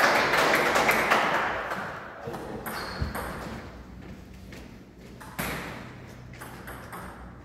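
A voice echoing in a large hall fades over the first second or two, then a few light, sharp taps of a table tennis ball, with one sharper knock about five seconds in, as the ball is bounced before a serve.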